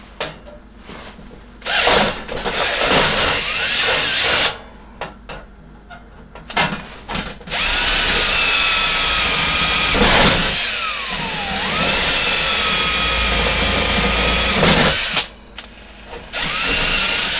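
Cordless drill with a 3/16 in. bit boring holes through the sheet-steel breaker panel cover, running in separate bursts: a run of about two seconds, a brief blip, a long run of about seven seconds, and a short one near the end. A steady high whine, whose pitch sags once midway through the long run and comes back up.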